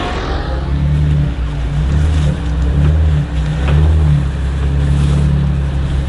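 A vehicle engine running, its low note swelling and easing as the revs rise and fall slightly.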